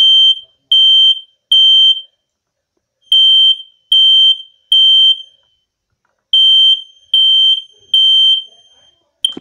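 FireX Model GC smoke alarm sounding its code 3 (temporal-three) alarm: loud, high-pitched beeps of about half a second, three in a row, a pause, then again, three full groups, with the next group just starting at the end. This is the test of the alarm's horn, showing the code 3 pattern rather than a 4, 6 one.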